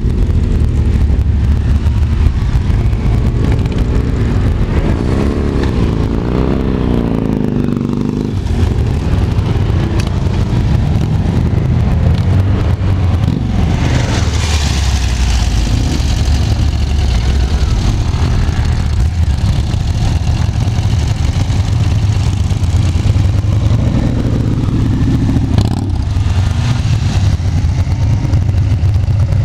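A column of motorcycles riding past one after another, their engines running and revving. Engine notes rise and fall as each bike goes by, most clearly in the first several seconds.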